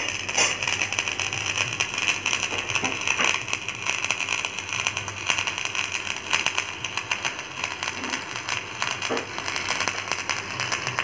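Electric arc welding on a steel loader boom: the arc crackles and sizzles steadily, with a dense stream of fine pops, over a steady low hum.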